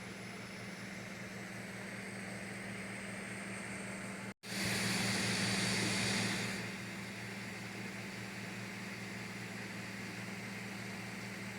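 Creality CR-M4 3D printer running: a steady fan hum with low motor tones. About four seconds in the sound cuts out for an instant, then comes back louder and hissier for about two seconds before settling to the steady hum.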